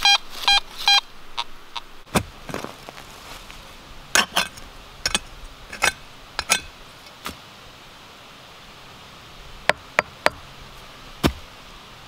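Fisher F19 metal detector sounding its target tone as a quick run of short beeps in the first second. Then a small hand digging tool chops into forest soil in a series of sharp strikes, with a few more single sharp clicks near the end.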